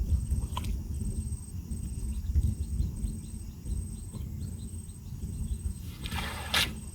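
Insects calling outdoors: a faint high buzz that pulses on and off in regular dashes, with a run of soft rapid ticks through the middle. A heavy low rumble runs underneath, and a short rushing noise, the loudest event, comes about six seconds in.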